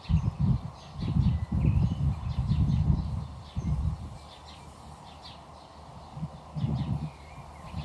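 Birds chirping with short, repeated calls, over loud, irregular low rumbling bursts that ease off for a couple of seconds in the middle.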